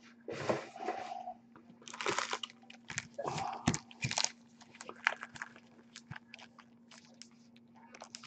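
Foil-wrapped Topps Platinum trading-card packs crinkling and rustling as they are handled, shuffled and stacked on a tabletop, with irregular taps and clicks.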